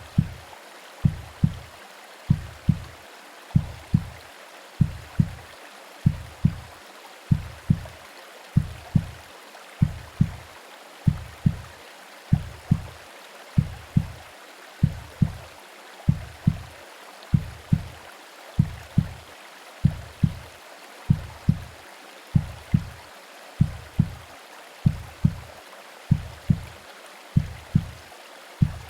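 Womb-style heartbeat sound for soothing a baby: paired low thumps, lub-dub, about one double beat every second and a quarter. Underneath runs a steady hiss of white noise and rain.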